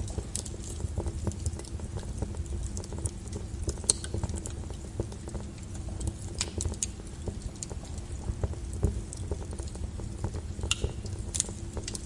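Fire crackling, irregular sharp pops and snaps, a few louder than the rest, over a steady low rumble of brown noise.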